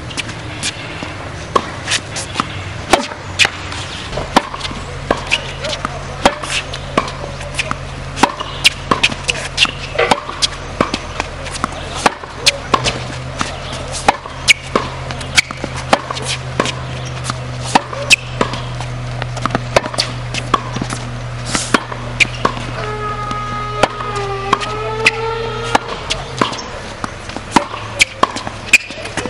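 Tennis rally on a hard court: a quick run of sharp pops from racket strikes on the ball and the ball bouncing, going back and forth, with a steady low hum underneath.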